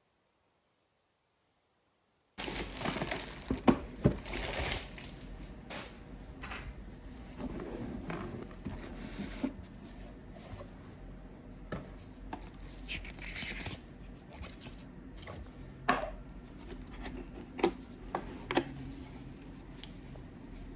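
Silence, then from about two seconds in, plastic packaging crinkling and being torn open by hand. Sharp clicks and taps of small items being handled are heard throughout, loudest about four seconds in and again near the end.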